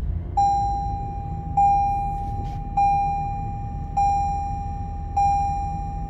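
A 2021 Toyota 4Runner's dashboard warning chime rings five times, about a second and a quarter apart, each a single bell-like tone that holds until the next. Under it is the steady low hum of the 4Runner's 4.0-litre V6, just started with the push button and idling.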